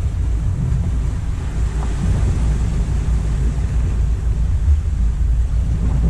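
Wind buffeting the microphone in a heavy low rumble, over the wash of sea waves against the rocks.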